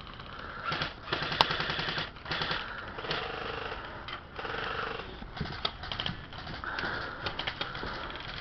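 Airsoft guns firing in rapid bursts, each a fast rattle of clicking shots, with one sharp crack about a second and a half in.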